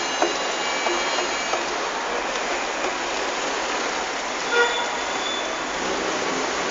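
Steady street noise like passing traffic, with faint thin high tones in the first second and a short one about four and a half seconds in.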